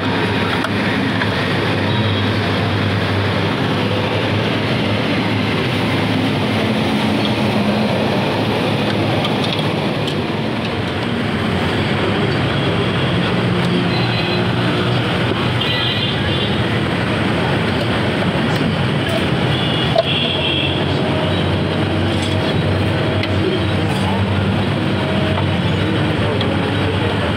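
Steady road traffic noise, with a single sharp click about twenty seconds in.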